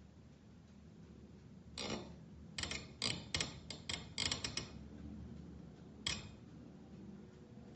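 A quick run of about a dozen sharp clicks and taps starting about two seconds in and lasting under three seconds, then one more click about six seconds in, over a faint low background hum.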